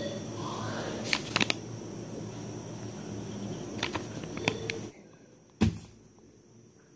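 Pencil writing on notebook paper over a steady low room noise, with a few sharp ticks about a second in and again near four seconds. The background then drops away suddenly and a single dull thump follows.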